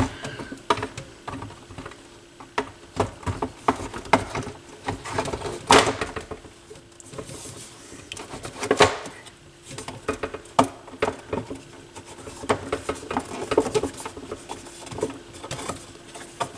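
Hands fitting the RCA cable piece into a turntable's base: irregular small clicks, taps and light rattles of parts being handled, with a faint steady hum beneath.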